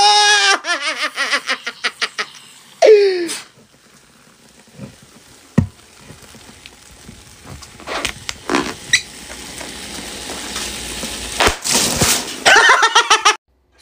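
A voice laughing "ha ha ha" at the start, heard briefly again about three seconds in. Then a quieter stretch with a few sharp knocks and clicks, and voices again near the end.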